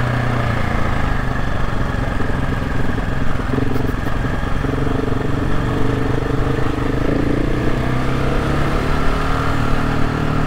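Supermoto motorcycle engine running steadily at low revs, the revs rising a little about halfway through, listened to for a faint whine between a hiss and a grind. The same noise is found on both bikes being compared, so it is taken as normal rather than a fault.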